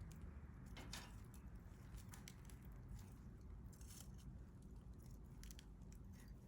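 Wood campfire burning quietly, with scattered small crackles and pops over a soft low rumble.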